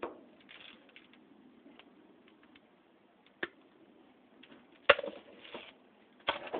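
A few scattered clicks and knocks of small metal fan parts and pull chain being handled, with a sharp click about three and a half seconds in and a louder clatter near five seconds.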